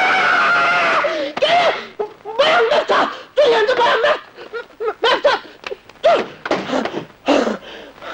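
A high, sustained scream that breaks off about a second in, followed by a run of short, broken vocal outbursts, hysterical and laugh-like, coming in gasps.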